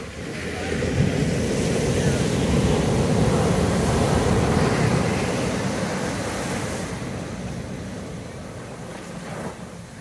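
Ocean surf: a wave breaks and its foam washes up the sand and against boulders. The rush swells in about the first second, stays loud for a few seconds, then slowly fades away.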